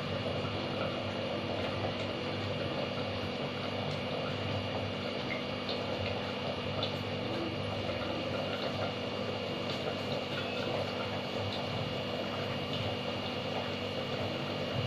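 Hot oil sizzling quietly on a tawa: a steady hiss with a few faint scattered crackles.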